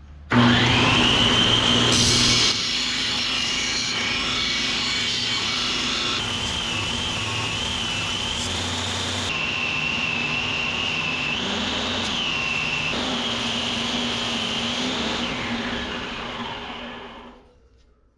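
Electric power tool motor running steadily with a high whine that shifts in pitch several times as the load changes, then winding down near the end.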